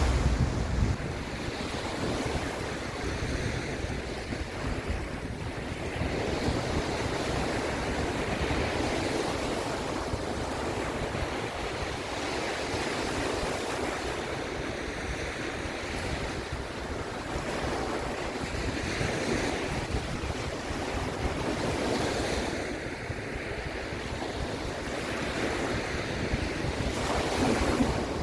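Sea waves washing and breaking, swelling and easing every few seconds, with a steady sea wind gusting across the microphone.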